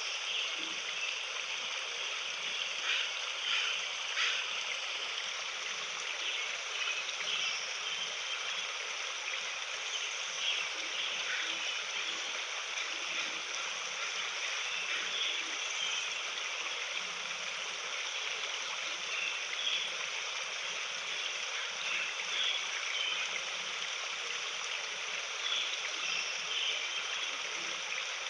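A flowing stream: a steady, even rush of running water.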